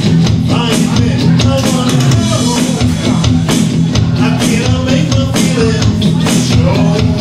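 Live techno-pop band music: electric guitar, electronic drum kit and synthesizer playing together over a steady drum beat.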